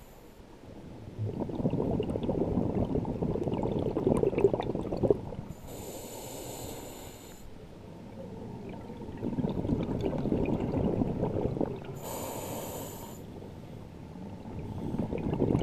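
Scuba diver breathing through a regulator underwater: long bubbling exhalations alternate with short, high hissing inhalations, about two full breaths.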